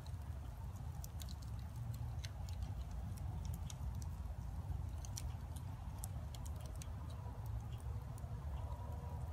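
Scattered light clicks and ticks at irregular intervals, a few a second, over a steady low rumble.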